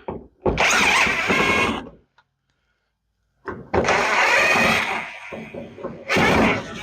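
Power drill-driver running in short bursts, backing out the dome light's mounting screws: two runs of about a second and a half each, then a shorter one near the end.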